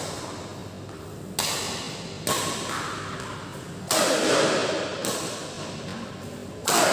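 Badminton racket smashing a shuttlecock: four sharp hits, the last two loudest, each echoing in a large hall.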